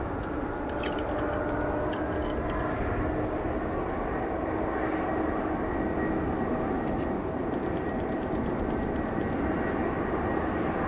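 Boeing 787-8's GEnx-1B turbofan engines at takeoff thrust as the jet climbs away: a steady rushing noise with a low steady tone through it.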